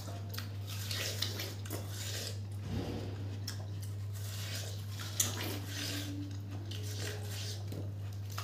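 Watermelon being bitten and chewed fast, with wet crunches, sucking mouth noises and light clicks of rinds on plates, picked up close by a clip-on microphone; one sharp click about five seconds in. A steady low hum runs underneath.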